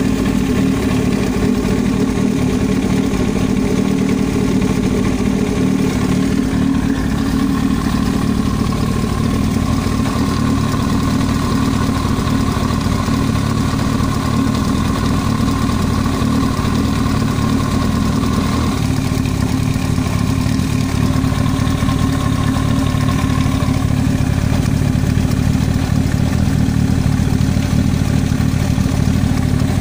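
Yamaha YZF-R1's inline-four engine running steadily, about idle speed, with an abnormal knock that the owner places in the cylinder head.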